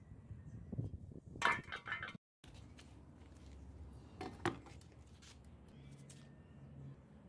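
A rusty steel grub hoe head handled with a burst of metallic clatter about one and a half seconds in, then a single knock a little past four seconds as it is set down in a plastic tub of water.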